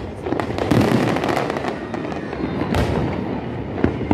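Aerial fireworks going off in a dense crackle, with sharper bangs about a second in, near three seconds and just before the end.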